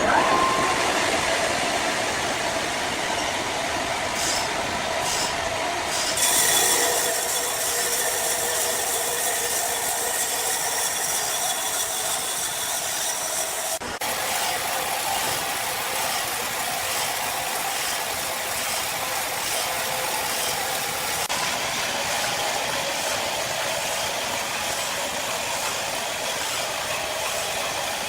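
Sawmill saw running and cutting through a log: a steady, loud mechanical whine and hiss that shifts abruptly a few times.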